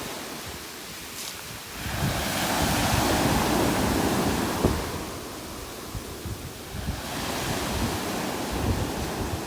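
Wind gusting over the microphone, a steady rushing noise with low buffeting that swells about two seconds in and eases after about five seconds.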